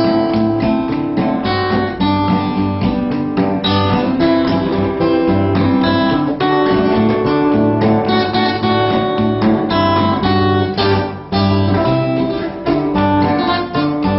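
Background music on acoustic guitar: quick plucked and strummed notes over a steady bass line.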